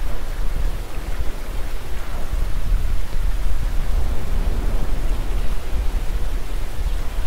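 Wind buffeting the microphone outdoors: a steady loud rushing with a heavy, uneven low rumble.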